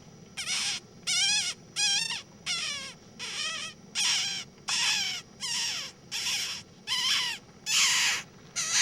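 An animal outdoors calling over and over: about a dozen harsh calls, each under half a second, in a steady rhythm of roughly one and a half calls a second.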